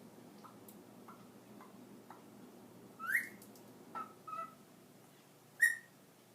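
Meyer's parrot vocalising: a few faint soft clicks, then a loud rising whistle about three seconds in, two short chirps a second later, and another sharp whistle near the end.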